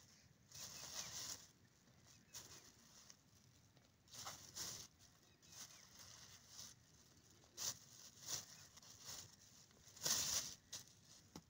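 Thin plastic bag rustling and crinkling in short, irregular bursts as green chillies are pulled out of it by hand, the loudest crinkle about ten seconds in.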